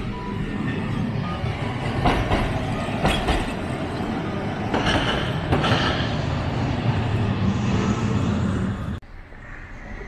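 Hankai Tramway Mo 501-class street tram No. 502, built by Teikoku Sharyo in 1957, running along street track with a steady low rumble. Its wheels clack sharply over rail joints several times between about two and six seconds in. The sound cuts off abruptly about nine seconds in.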